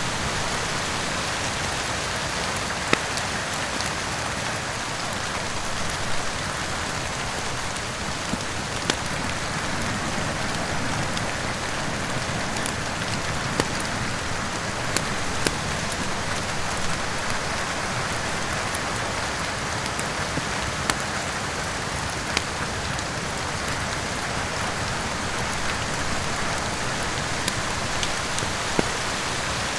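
Steady rain with a crackling wood fire: an even rain hiss with sharp pops scattered irregularly over it.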